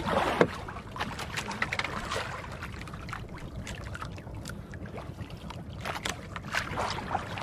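Water splashing and sloshing around a small wooden fishing boat: many short, irregular splashes and knocks over a steady low rumble.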